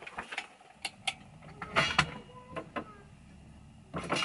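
Objects being handled on a workbench: scattered clicks and knocks, with a louder clatter near the end.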